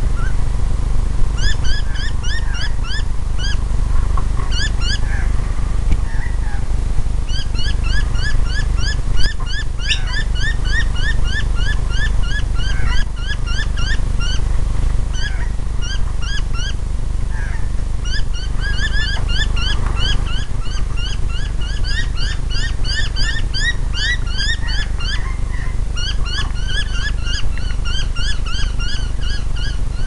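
Birds calling in a rapid, near-continuous series of short repeated calls, several a second, with brief pauses. A steady low rumble sits underneath, and there is a single sharp knock about nine seconds in.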